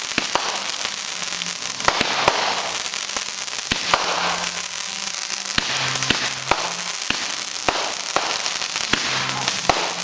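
Fireworks going off in a finale: sharp bangs and pops at irregular intervals, about one or two a second, over a continuous crackling hiss of burning shells and sparks.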